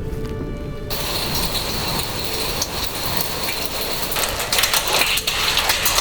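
Heavy rain pelting down, a dense, steady rattle of drops striking a hard surface, starting suddenly about a second in.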